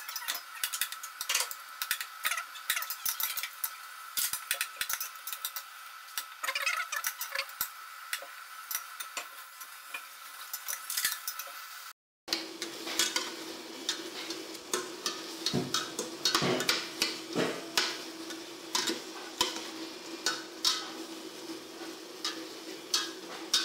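Metal spoon stirring and scraping in a stainless steel pot, with many quick clinks against the pot and a light sizzle of garlic and small shrimp stir-frying. A steady hum runs underneath and drops in pitch at a cut about halfway through.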